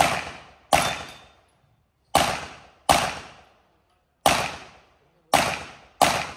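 Seven gunshots from a firearm, mostly in pairs about three-quarters of a second apart with a single shot between, each sharp report trailing off in echo over most of a second.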